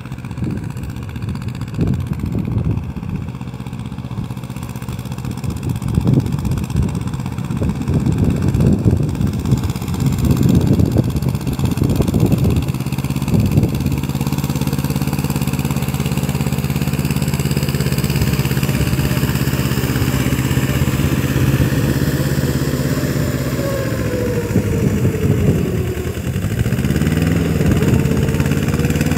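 Mini tractor's diesel engine running steadily under load as it puddles a flooded paddy field on iron cage wheels, its pitch dipping and rising again near the end. Irregular gusts of wind rumble on the microphone during the first half.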